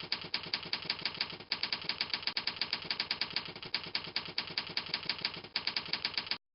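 Typewriter sound effect: a rapid, even run of key clacks, about ten a second, with two short breaks, cutting off suddenly near the end.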